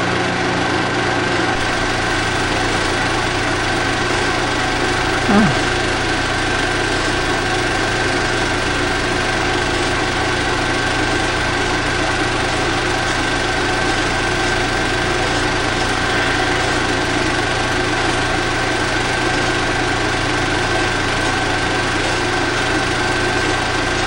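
Steady machine drone with a low hum and a high whine, unchanging throughout.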